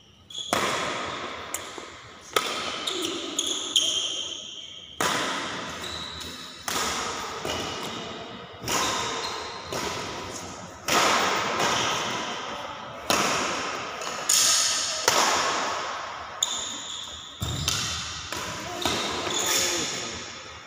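Badminton rackets striking a shuttlecock in a rally, a sharp hit about every one to one and a half seconds, each hit echoing on in the large hall.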